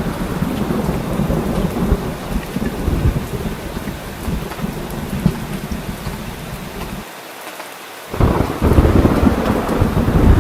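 Heavy rain falling steadily, with thunder rumbling low underneath. About seven seconds in, the rumble drops out for roughly a second, then rolls back in strongly.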